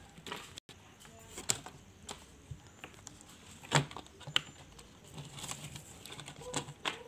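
Small plastic toy pieces handled and set down on a table: scattered light clicks and knocks of hard plastic, the loudest a little under four seconds in.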